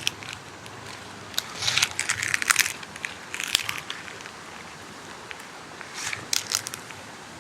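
Footsteps crunching and crackling on dry leaves, in three bursts about a second in, around three and a half seconds, and near six seconds, over a steady soft background hiss.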